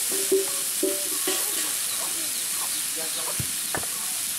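Chopped leafy greens sizzling in a hot metal kadai while a flat metal spatula stirs and scrapes them against the pan. There are short ringing scrapes in the first second or so and two sharp knocks of the spatula a little over three seconds in.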